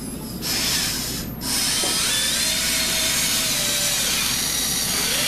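Electric motors and servos of a Kabolite 970 all-electric RC excavator whirring and buzzing, heard without the simulated engine sound. The noise starts about half a second in, drops out briefly, then runs steadily.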